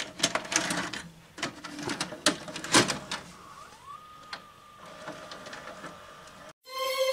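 A VHS cassette being pushed into a video cassette recorder: a run of clicks and clunks from the loading mechanism, then a motor whine that rises and holds steady as the tape starts to play. Near the end the sound cuts out briefly and a held musical chord begins.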